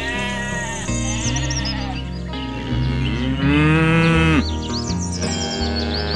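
Sheep bleats over background music: a short bleat at the start and a longer, louder one about three to four seconds in, with small bird chirps high above.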